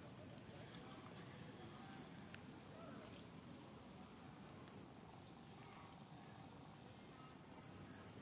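Faint, steady insect chorus of crickets or cicadas: two shrill, high-pitched tones held without a break.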